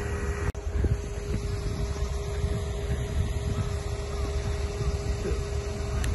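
Cat excavator's diesel engine idling steadily with a constant hum, over a low wind rumble on the microphone. The sound drops out briefly about half a second in.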